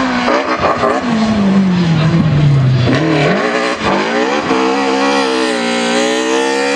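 Rally car engine whose pitch falls steadily over about three seconds as the car slows, with several quick gear changes. It then pulls hard at high revs, rising a little, as the car accelerates away.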